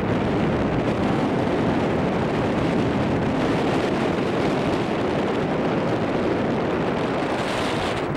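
Steady wind noise on the microphone of a handheld camera carried aloft under a parasail, a continuous loud rumbling rush that turns briefly hissier near the end.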